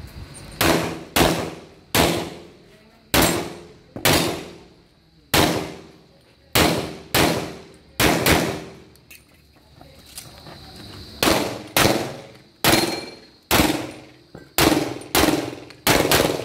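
Handgun fired again and again as the shooter works through a practical shooting stage: about twenty sharp shots, many in quick pairs with short pauses between, each with a brief decaying echo.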